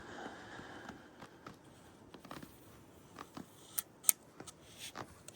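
Scattered crunches and sharp clicks as deep snow is probed to measure its depth. The loudest click comes about four seconds in.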